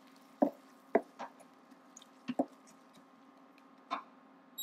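A slotted spatula knocks and scrapes against a ceramic-coated frying pan as onions are stirred in hot oil. There are about six short, sharp taps at uneven intervals over a faint steady hum.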